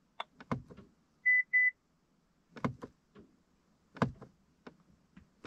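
BMW E92 instrument cluster chime (gong) sounding in the cluster's hidden audio test menu: two short, identical high beeps in quick succession about a second in. Several sharp clicks of the cluster button being pressed come before and after.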